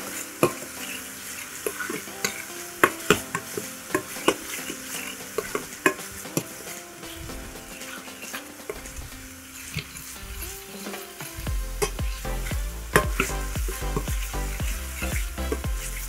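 Galangal, garlic and onion paste sizzling in hot oil in a frying pan as a spoon stirs it, clicking and scraping against the pan. A low steady hum comes in about eleven seconds in.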